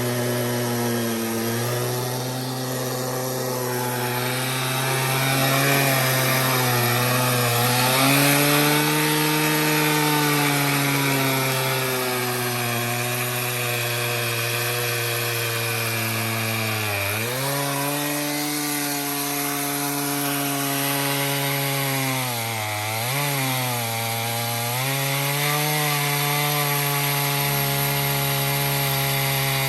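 Chainsaw on a chainsaw mill ripping a cedar log lengthwise into a 2-inch slab, the engine running steadily under load. The engine speed dips briefly past halfway and twice more a few seconds later as the cut loads it down.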